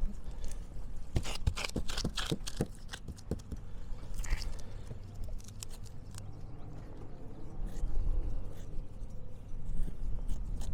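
Brush dabbing and working resin into fiberglass cloth on a dinghy repair: a quick run of irregular short taps and clicks in the first few seconds, a brief scrape about four seconds in, then scattered taps, over a steady low rumble.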